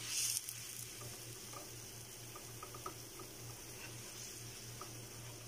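Water with fried garlic simmering in a frying pan, a steady bubbling hiss with small scattered pops as it nears the boil. A short hiss at the start and a faint low pulsing hum underneath.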